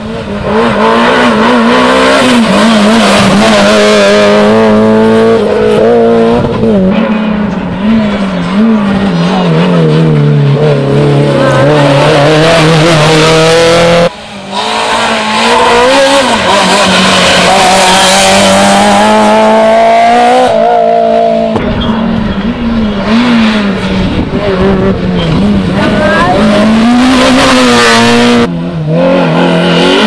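Small rally cars driven flat out on a tarmac stage, a Citroën C2 and then a Peugeot 106 among them, their four-cylinder engines revving hard with quick rises and drops in pitch at gear changes and lifts. The sound breaks off abruptly about halfway and again near the end as one pass gives way to the next.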